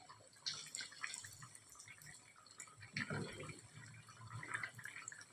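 Keema kachoris deep-frying in hot oil: a faint, steady crackle and bubble. It gets louder about half a second in and again about three seconds in as a wooden spatula turns them.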